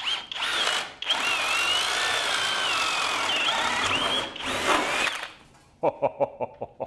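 Flex brushless hammer drill in turbo mode boring into a wooden board. It gives a short burst, then runs steadily for about three seconds with a wavering whine, then a last short burst. A quick run of clicks follows near the end.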